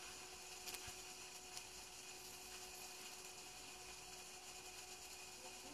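Near silence: a faint steady hum and hiss, with a few faint clicks about a second in.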